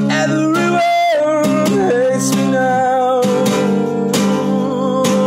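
Acoustic guitar strummed in a song, with a wordless sung note held over the chords, sliding at first and then held with a slight waver.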